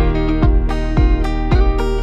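Background music: plucked guitar notes over a steady kick-drum beat of about two thumps a second.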